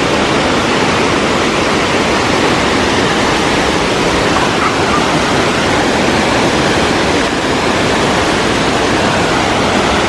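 Loud, steady rush of water from a rocky stream's rapids and a waterfall.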